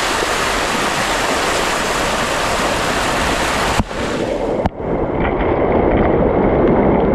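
Small waterfall rushing and splashing over rock close to the microphone, a loud, steady rush of water. About four seconds in it breaks off twice briefly, then continues duller, with small splashes.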